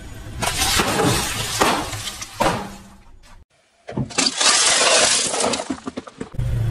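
A car tyre rolling over and crushing bags of snack crisps. After a short break, it crushes plastic cups packed with M&M's candies, a dense run of cracks as the cups split and the candies break.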